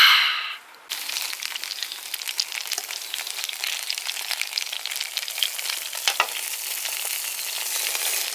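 A ring-pull drinks can cracked open with a short, loud hiss. About a second in, sausages start sizzling and spitting in a metal frying pan, with light clicks of metal tongs turning them.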